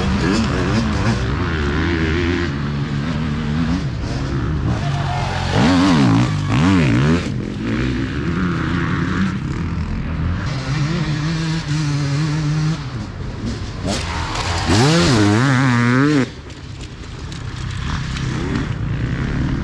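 Yamaha YZ250F 250 cc four-stroke single-cylinder dirt bike engine running under hard riding, its revs rising and falling quickly as the throttle is worked. There are sharp rev swings about six seconds in and again about fifteen seconds in, and it eases off just after sixteen seconds.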